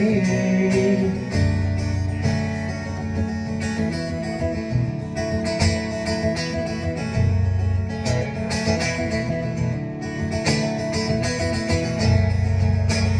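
Acoustic guitar strummed and picked in a steady instrumental passage, played live through a concert PA.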